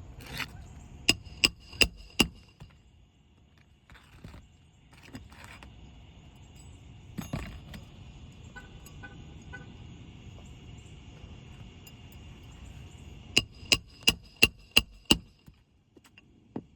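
Hammer driving roofing nails through asphalt shingles: sharp ringing metal strikes, four quick blows about a second in and a run of six near the end, about three a second.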